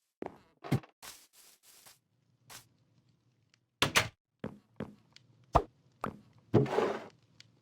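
Irregular knocks and clicks, a dozen or so, with short rustling noises in between and a longer scrape-like noise near the end.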